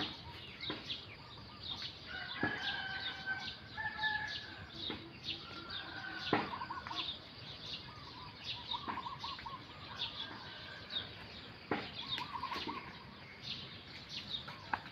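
Birds calling outdoors: many short high chirps throughout, with warbling calls and a few held whistled notes at several points.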